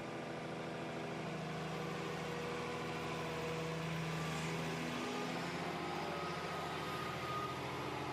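Volvo EC210C crawler excavator's diesel engine running steadily, with a thin, steady whine above the engine note.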